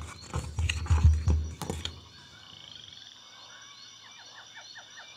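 A duck quacking in several rough bursts for about two seconds, then a steady backdrop of insects trilling with faint short chirps.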